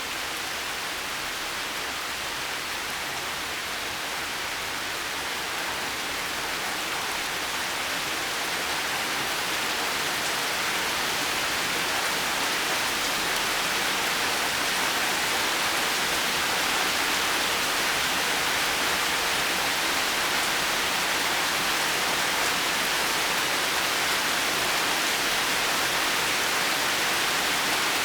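Steady rain falling, an even hiss with no thunder, growing a little louder over the first half and then holding.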